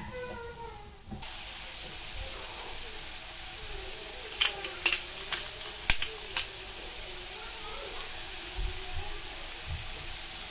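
Cubed squash frying in oil in a pan, a steady sizzle that starts about a second in. A handful of sharp clicks and taps come around the middle.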